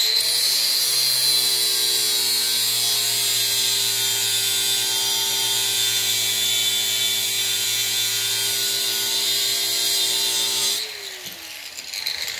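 Angle grinder with a 36-grit flap disc grinding steel off the heavy end of a lawn mower blade to balance it. The motor spins up, runs steadily with a whine and a hissing grind, then is switched off about eleven seconds in and winds down.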